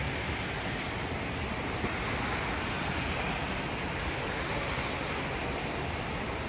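Steady rushing wind in a snowstorm, an even hiss that neither swells nor fades.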